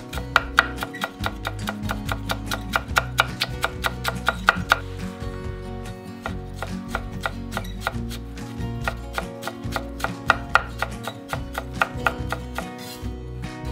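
Kitchen knife mincing ginger on a wooden cutting board in quick chops, about four or five a second. The chopping turns lighter and more spaced after about five seconds.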